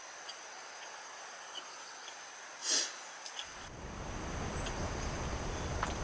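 Quiet outdoor ambience with insects chirring steadily. A single brief breathy puff comes a little before halfway. After that a low rushing noise slowly builds.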